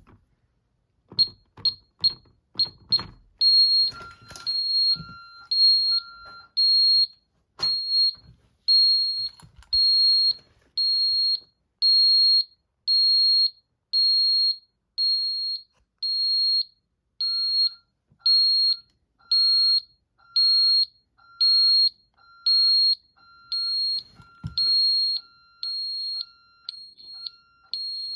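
Ademco 6137 alarm keypad's built-in sounder beeping a single high tone. It gives a few quick short beeps with clicks as keys are pressed, then a steady run of beeps about one a second, with a few more clicks along the way.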